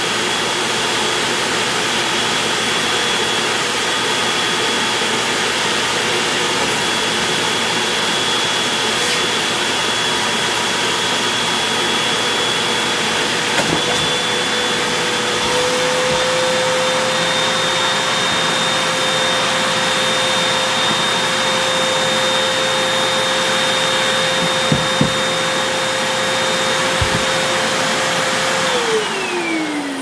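Hoover canister vacuum cleaner running steadily with a high motor whine as it sucks debris off carpet, with a few brief knocks. Its pitch rises slightly about halfway through, and near the end the motor is switched off and its whine falls away as it spins down.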